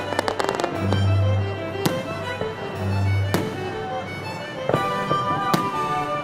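Background music led by a violin, with a low note pulsing about every two seconds, over the sound of fireworks: a burst of crackling at the start, then single sharp bangs of shells bursting a few times.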